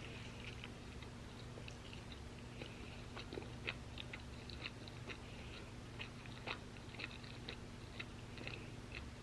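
Close-miked chewing of crispy waffle fries: irregular sharp crunches and crackles, two of them louder, over a faint steady low hum.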